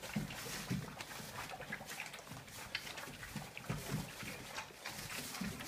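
A litter of 34-day-old Doberman puppies feeding together from a steel bowl: irregular quick smacking, snuffling and small grunts, with shredded newspaper rustling under their paws.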